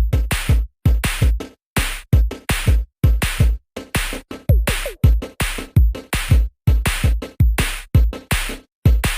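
Phone alarm tone playing an electronic drum-machine beat: deep kick thumps and hissy hits repeating in a steady pattern of short groups, with a short falling tone about halfway.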